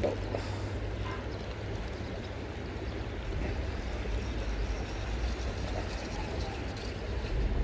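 River water flowing steadily: an even rush with a low rumble beneath it.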